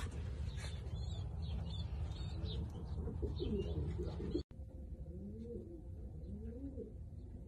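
Domestic pigeons cooing: repeated low coos that rise and fall in pitch, starting about two seconds in and going on after a brief dropout near the middle, over a steady low hum.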